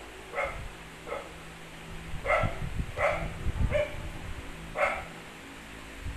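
Dogs at play barking in short, sharp yaps, six of them spread over about five seconds, with scuffling underneath during a tug-of-war.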